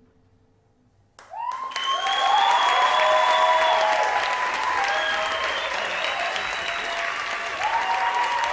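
Near silence, then an audience bursts into applause about a second in, with cheering, and keeps clapping loudly.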